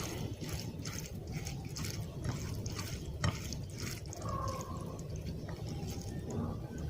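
Wet food being handled, most likely white rice and fish curry mixed together, giving soft squelches and small clicks throughout, with one sharper click about three seconds in, over a steady low hum.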